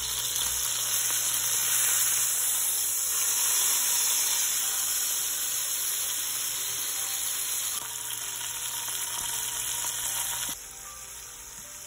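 Chuck roast searing in hot oil in an enameled cast-iron Dutch oven: steady sizzling and spitting, which drops quieter near the end.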